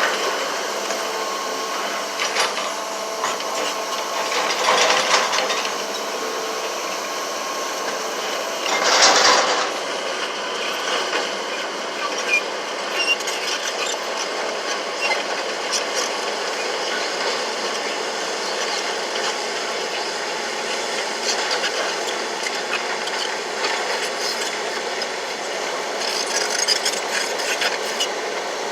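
Heavy earthmoving machinery working: steady mechanical running with metallic clanking and squeaking, swelling louder about 5 and 9 seconds in.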